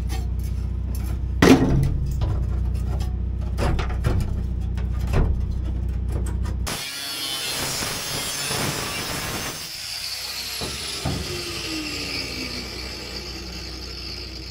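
A sheet-steel panel is handled with a few knocks over a steady low hum. About halfway through, an angle grinder with a cut-off disc cuts through the thin sheet steel, a grinding hiss with its whine falling away near the end.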